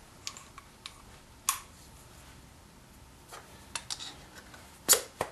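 Scattered light clicks and sharp metal knocks of steel parts being handled: the threaded nut on its mandrel and a 5C collet block knocking against each other and the milling vise. The loudest knock comes near the end, another about a second and a half in.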